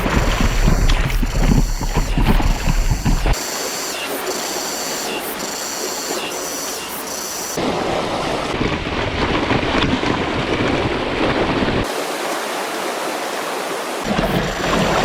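Mountain stream and small waterfall rushing, a steady loud noise of falling water. It changes abruptly several times, with some stretches heavier in the low end like wind on the microphone.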